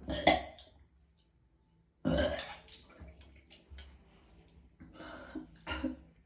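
A person retching and vomiting in several heaves with short gaps between them, brought on by extreme pain.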